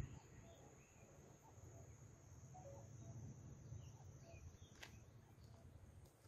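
Near silence: faint outdoor ambience with a thin steady high-pitched insect buzz, a few faint scattered chirps and a faint low rumble.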